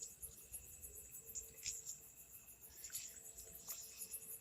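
Crickets chirping in a steady, evenly pulsing high trill, with a few faint ticks.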